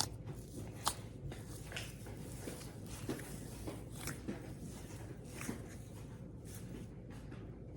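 Hands squishing and kneading soft, fluffy slime for ASMR, making scattered small clicks and crackles at irregular intervals, a couple of sharper ones about a second in.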